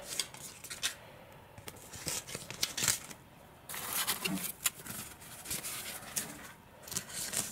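Plastic packing material and foil-lined padded bags rustling and crinkling as they are handled, in irregular spells with scattered sharp clicks and taps.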